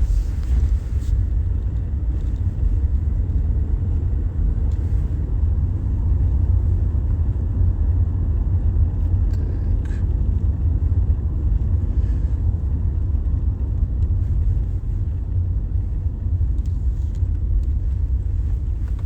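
A car driving, giving a steady low rumble of engine and road noise.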